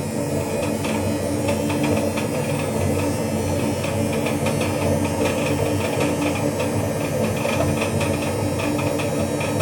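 Hotpoint-Ariston WMUF 5050 washing machine running with a steady hum. From about a second in, a fast, irregular knocking rattles over it.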